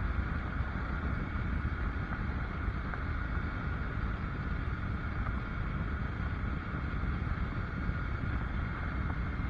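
Triumph Tiger's three-cylinder engine running steadily at a low, even cruise, mixed with wind rumble on the microphone.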